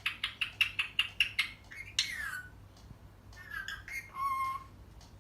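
Indian ringneck parakeet calling. It gives a quick run of about eight sharp chirps in the first second and a half, then a falling squawk at about two seconds, then a few shorter calls and a held note near four seconds.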